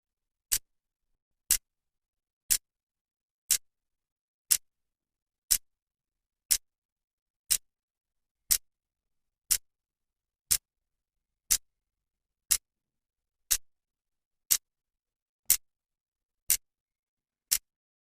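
Clock second hand ticking once a second: single sharp, evenly spaced clicks with silence between them.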